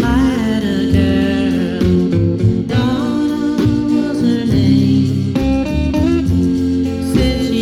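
Music: an oldies rock-and-roll or pop record playing, with guitar to the fore and notes that bend in pitch.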